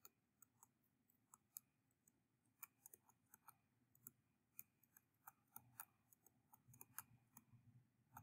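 Near silence, with faint, irregular clicks of a stylus tip tapping on a tablet screen during handwriting.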